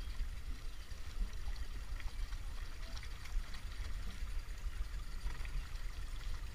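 Water lapping and trickling against the sides of small open boats, with many small splashes and a steady low rumble underneath.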